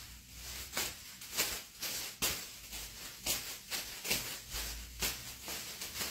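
Thin plastic bags rustling as they are juggled three at a time: a brief crinkling swish with each throw and catch, about three a second.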